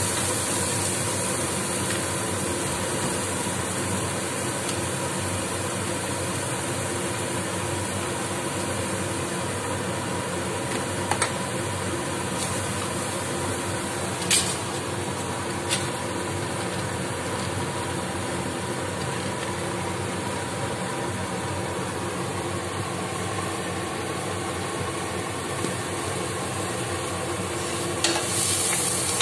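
Diced onions sizzling in hot oil in a frying pan as they are stirred with a wooden spatula, a steady frying hiss with a few sharp taps about halfway through.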